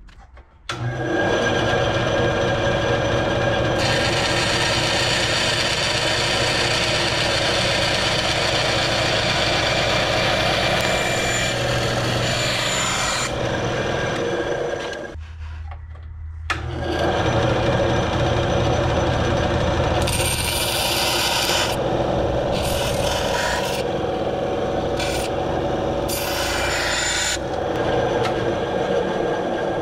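Benchtop bandsaw running and cutting aluminium sheet parts: a steady motor and blade hum with a harsher rasping hiss in stretches as the metal is fed through the blade. It starts abruptly about a second in and briefly drops away about halfway.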